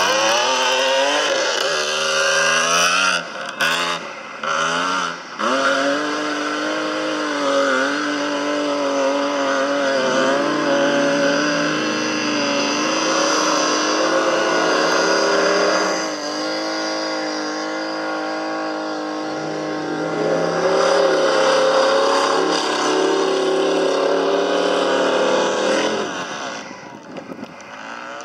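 Mud-racing truck's engine revving hard as it powers through a mud pit, its pitch rising and falling with the throttle. It has brief throttle lifts about three to five seconds in, and the engine note drops away near the end.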